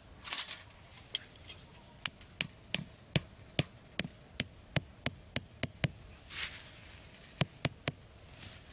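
A brief rustle or scrape, then a run of sharp knocks, roughly two to three a second, as from repeated tapping or striking with a tool. Another rustle about six seconds in, then three more knocks.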